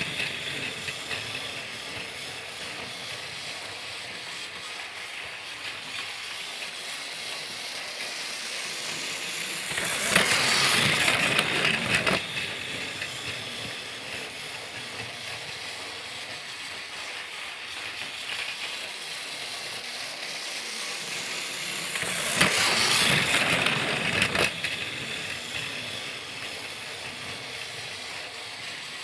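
Motorized Thomas the Tank Engine toy train running on its track, a steady geared whir and rattle that swells twice, about twelve seconds apart, as it comes past close.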